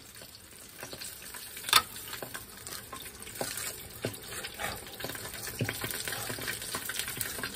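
Tempura frying in a small pan of hot oil, a steady sizzle full of small crackles that grows a little louder after about three seconds. A single sharp click a little under two seconds in is the loudest sound.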